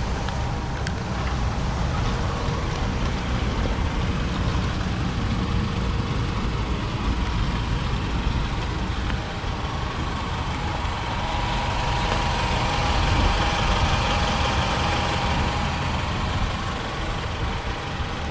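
Mitsubishi ASX's 1.8-litre MIVEC inline-four engine idling steadily. A broader hiss swells about eleven seconds in and fades again a few seconds later.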